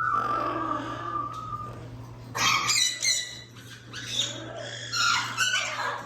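Amazon parrot calling: a steady whistled note held for nearly two seconds, then a run of short, harsh calls.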